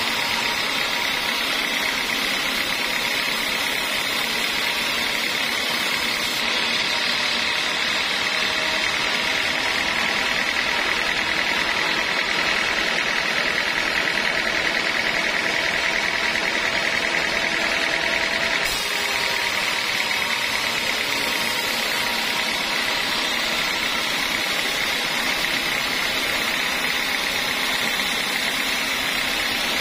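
Sawmill machinery running steadily, a constant motor drone with no change in speed.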